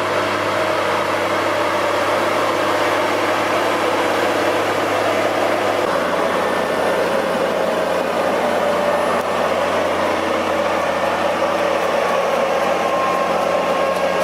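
Heavy machine's engine running steadily, its low hum changing about six seconds in.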